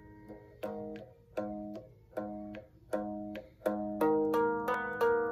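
Guitar playing slow plucked chords, one about every three-quarters of a second, each left to ring; about four seconds in they come quicker and louder.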